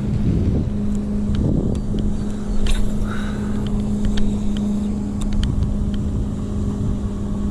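Boat motor running with a steady, even hum over low rumble, with a few small clicks.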